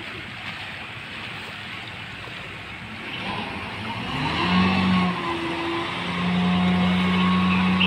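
Cargo landing craft's engine throttling up: a low drone that climbs in pitch about four seconds in and then holds steady and louder, over a haze of wind and water.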